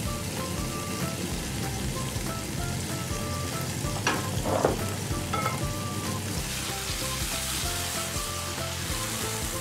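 Chopped spring onion and garlic sizzling in hot olive oil in a non-stick frying pan on a gas hob. There is a brief knock about four seconds in, and the sizzle grows louder in the second half as the pan is shaken over the flame.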